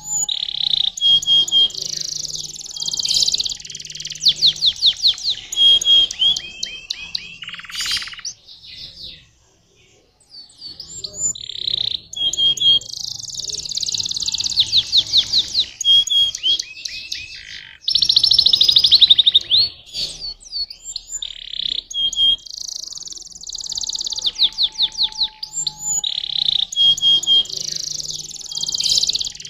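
Domestic canary singing a long song of fast, high trills and rolls, with a short pause about nine seconds in before it starts again.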